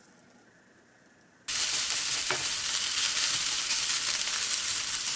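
Fried rice with cabbage and bits of meat sizzling in a hot frying pan as a spatula stirs it. The sizzle cuts in suddenly about a second and a half in, after near silence, and holds steady.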